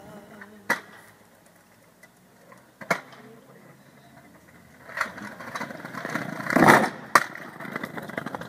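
Skateboard knocks and clatter: a few sharp single knocks spread out, and a louder clatter about two-thirds of the way through.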